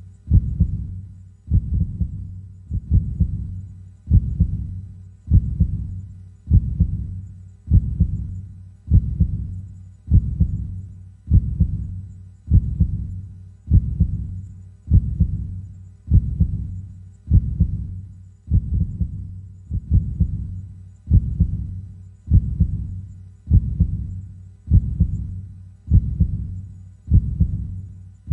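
A slow, steady heartbeat: a low double thump, lub-dub, repeating evenly about fifty times a minute.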